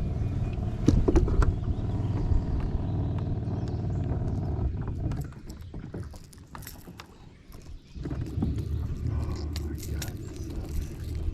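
A steady low motor hum that cuts out about five seconds in and starts again about three seconds later, with scattered light clicks and rattles.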